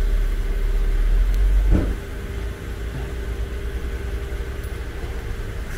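An engine idling with a steady hum, with a heavier low rumble over the first two seconds that drops away abruptly.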